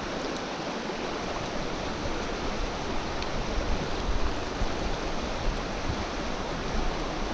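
Fast-flowing stream current, a steady rush of water.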